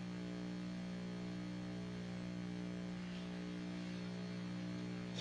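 Steady electrical mains hum, several tones stacked, over a faint hiss in the recording, with no other sound.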